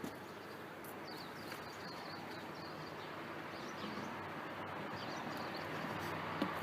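Steady outdoor background noise with short, high bird chirps now and then, and a single light knock about a second before the end.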